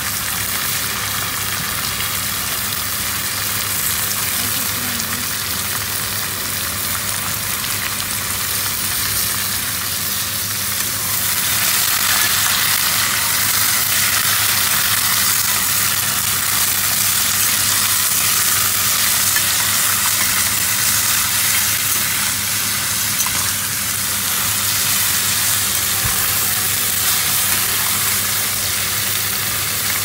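Sliced gourd sizzling as it fries in a stainless steel pan, stirred with a metal spoon. The sizzle grows louder about a third of the way in.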